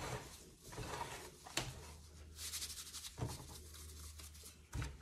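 Gloved hands squeezing and mixing a damp, crumbly bath bomb powder in a glass bowl: soft rustling and crunching, with a few faint knocks.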